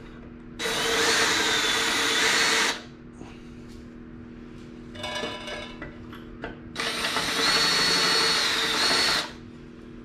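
Cordless drill run twice against a steel license-plate bracket, about two seconds each time with a steady whine, and a short softer burst between the runs. The drill is beveling the edges of a freshly drilled quarter-inch hole so that it has no sharp edges.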